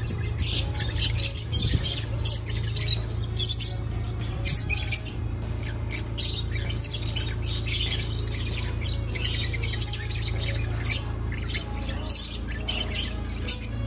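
Lovebirds chirping and squawking: many short, high, shrill calls in quick succession, over a steady low hum.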